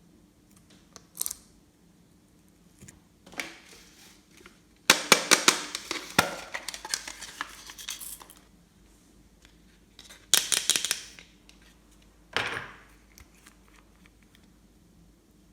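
Glossy slime being squeezed and worked by hand, in several bursts of rapid sticky clicking and crackling, the longest lasting about three seconds in the middle.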